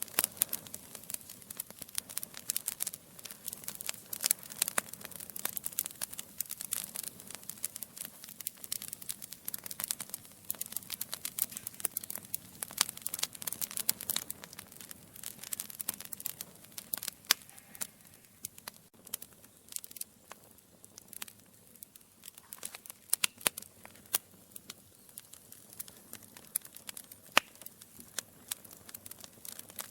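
Wood fire crackling in a fireplace: burning logs give off a dense, irregular run of sharp pops and snaps over a faint low rumble of flame.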